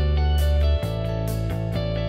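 Background music led by guitar, with a steady beat; the bass note changes a little under a second in.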